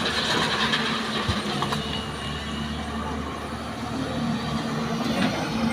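Diesel engine of heavy earthmoving machinery running steadily, with a low, even hum.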